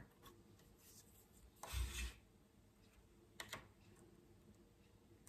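Faint scrape of a knife blade prying at the plastic of a BMW E36 instrument cluster to lift its LCD screen, about two seconds in, then two small clicks. The rest is near silence.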